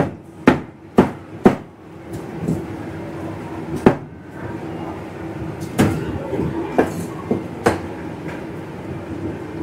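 Sharp knocks, four in a quick run about half a second apart, then a few scattered single knocks, over a steady background hum.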